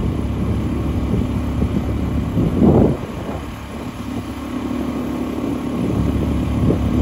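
A step-through Cub motorbike's small single-cylinder four-stroke engine running steadily while riding, with road and wind noise heard from the rider's seat; a brief louder swell about two and a half seconds in.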